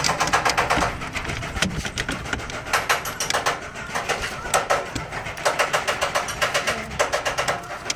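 Rapid, irregular knocking and clattering, several sharp strikes a second.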